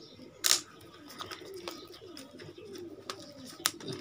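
Pigeons cooing in a soft, wavering run, with a few sharp clicks over it; the loudest is a brief burst about half a second in.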